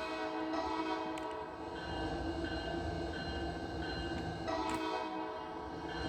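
Multi-chime air horn on a Coaster commuter-rail cab car sounding a held chord. The chord thins and dips slightly about 2 s in, then comes back fuller near 4.5 s.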